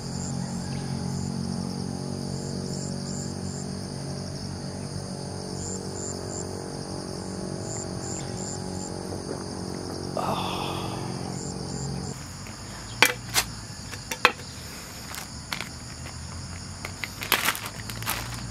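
Crickets and other insects chirping steadily in the night background. A low hum underneath stops about twelve seconds in, and several sharp clicks and knocks follow near the end.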